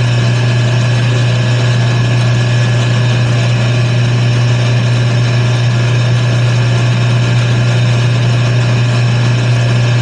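Wood lathe running steadily, its motor giving a loud, constant hum as the workpiece spins.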